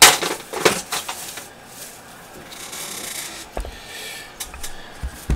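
Handling noise from the small steel slide and parts of a disassembled Baby Browning pistol: sharp clicks and taps right at the start, then rubbing, and two dull knocks near the end.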